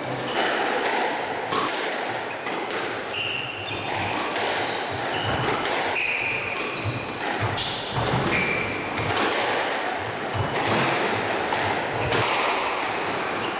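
Squash rally: the ball repeatedly smacking off rackets and the walls, with short high squeaks of court shoes on the wooden floor.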